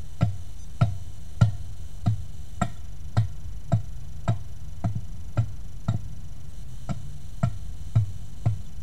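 Steady blows of a hand tool striking wood, a little under two a second, each a dull thump with a sharp click on top.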